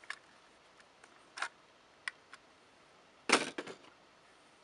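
A few sparse metal clicks and one short, louder clatter about three seconds in: a 20-round Tapco magazine being rocked into and out of a Norinco SKS rifle's magazine well.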